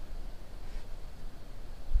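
Quiet room tone: a steady low hum under a faint hiss, with one dull low thump near the end.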